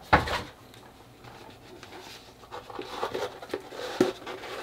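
Taped cardboard box being opened and its packaged contents handled: a loud handling noise right at the start, then quieter, then light taps and rustles in the second half with a sharp tick near the end.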